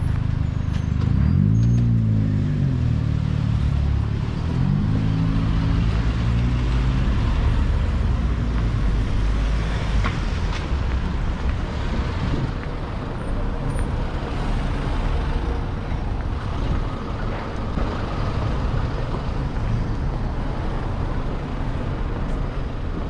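Street traffic: a large vehicle's engine rises and falls in pitch in the first few seconds as it pulls away, then settles into a steady rumble of passing cars.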